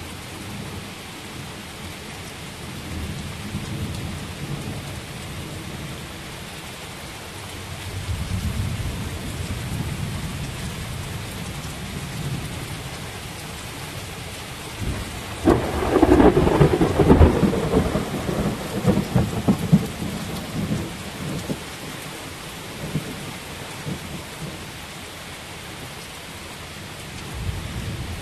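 Heavy rain pouring steadily in a thunderstorm, with a low rumble of thunder about eight seconds in. About halfway through, a sudden loud crack of thunder breaks out and rumbles on for several seconds before dying away.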